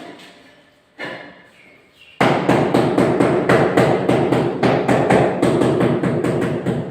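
A mallet tapping rapidly on a marble floor tile, several quick strikes a second, the way a tile is bedded down into its mortar. A single knock comes about a second in, and the fast tapping starts about two seconds in.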